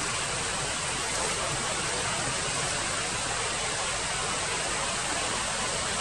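Steady, even rushing noise with no bird call in it.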